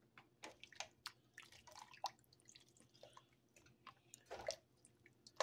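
Faint sloshing and dripping of a spoon stirring chunky vegetable and turkey soup in a stainless steel pot, with small clicks of the spoon and a louder slosh about four and a half seconds in.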